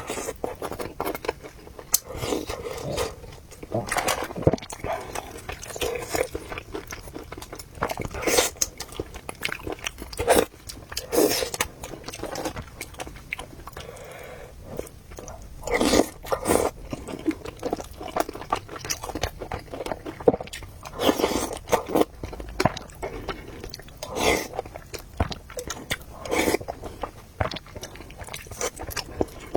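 A person chewing and biting into braised pork knuckle and rice in soup, with wet mouth sounds coming in irregular clusters every second or two.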